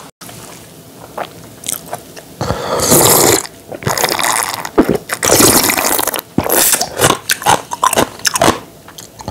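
A person slurping and gulping dongchimi broth straight from a bowl, in a string of loud slurps that start about two and a half seconds in.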